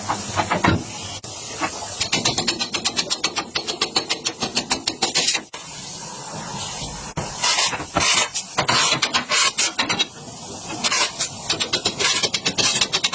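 Compressed air hissing from a pneumatic tool in rapid short pulses, in long runs broken by two quieter pauses, one a little before the middle and one past it.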